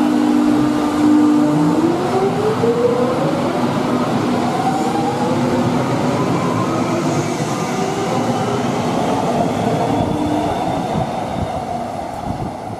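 Electric suburban train pulling out of an underground station, its traction motors whining in a steady tone that rises in pitch from about two seconds in as it accelerates away, over the rumble of wheels on rail.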